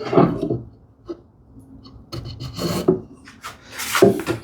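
Wood scraping and rubbing against wood: about three strokes, the loudest near the end.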